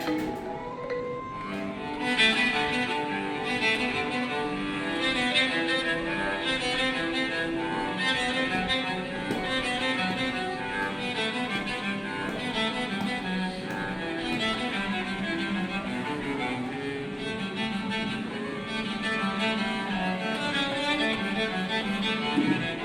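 Samsung Galaxy S26 ringtone: a classical piece played on bowed strings, cello and violins, carrying a busy melody of many short notes.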